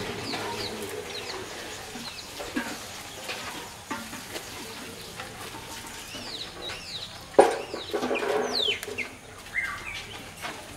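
Birds chirping with many short, quick whistled notes, and a louder, harsher burst of calling about seven seconds in.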